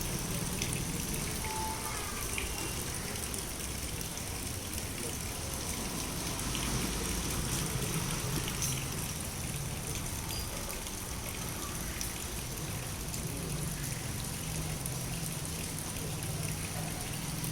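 Steady rain falling, with water gushing and trickling as it runs off.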